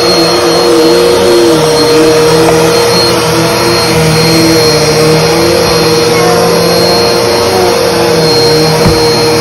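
Upright bagless vacuum cleaner running on carpet, its motor giving a steady whine over the rush of suction.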